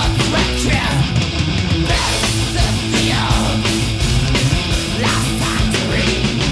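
Thrash metal band playing at full tilt: distorted electric guitars and bass over a steady, driving drumbeat.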